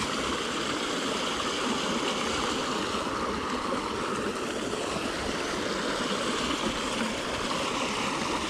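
River water rushing steadily, an even unbroken flow with no single splashes.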